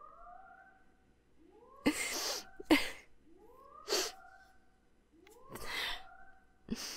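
A repeating whooping alarm, one rising tone about every two seconds, under a woman's sobbing breaths and sniffles.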